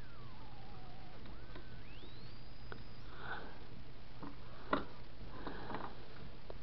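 Thin electronic whine from a home-built pulse-driver circuit and its coil, changing pitch as a trimmer on the generator board is turned with a screwdriver. It slides down over about a second, then climbs to a very high pitch and cuts off about three seconds in, along with a low hum. Faint rustling and a small tick follow.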